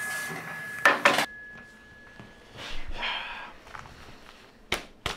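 A ceramic mug set down on a desk with two sharp knocks about a second in, while a held music tone fades out. Around three seconds there is a short breathy noise, and near the end two more sharp knocks.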